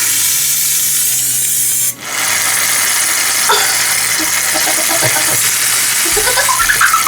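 Aerosol shaving cream can spraying foam out in a steady hiss, with a short break about two seconds in before the hiss starts again.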